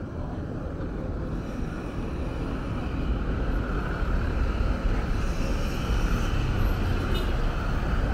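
Street traffic noise: a steady rumble of vehicles on the road, getting louder about three seconds in.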